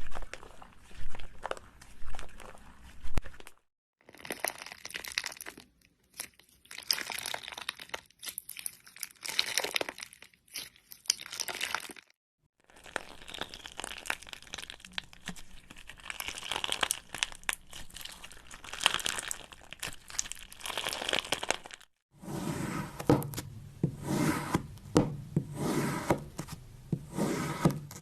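Crunching, crackling sounds of a material being stirred and mixed, in several short clips split by abrupt cuts.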